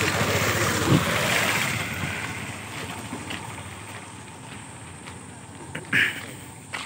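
A motorcycle passes close by, its engine and tyre noise fading over the first two seconds. Then come footsteps scuffing and crunching on a gritty concrete road, with a louder scuff about six seconds in.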